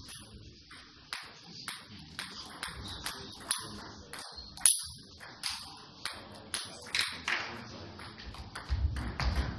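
Table tennis balls clicking off bats and tables, about two sharp hits a second with a short hall echo, the loudest about halfway through. A few low thuds come in near the end.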